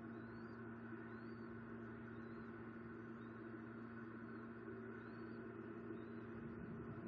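Faint, thin, high peeps about once a second, each rising and falling: a newly hatched bald eaglet calling to be fed. Under them runs a steady low hum.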